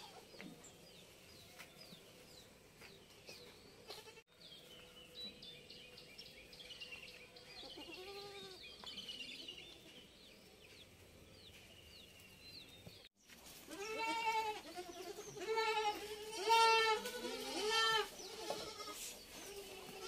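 Kodi goats bleating: a single bleat about eight seconds in, then a run of four or five louder, wavering bleats in close succession over the last third.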